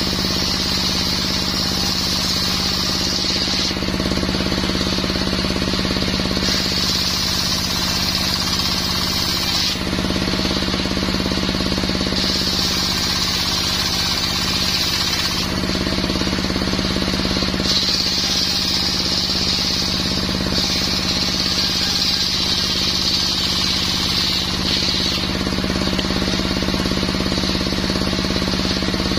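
A circular saw bench running steadily with a constant mechanical drone, while a higher whine comes and goes in stretches of a few seconds as the blade cuts into mahogany.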